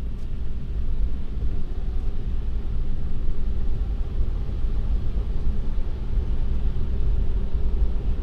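Steady low rumble of tyre and road noise inside a moving Tesla electric car on a snowy road.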